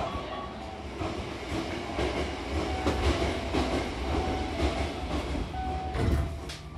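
Double sliding doors of a Hankyu train closing, shutting with a sharp thud about six seconds in. Another train runs on the next track throughout, with a rumble and the clatter of its wheels.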